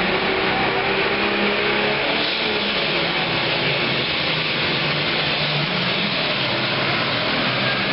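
Super Farm pulling tractor's turbocharged diesel engine running flat out in a steady, loud roar during a pull.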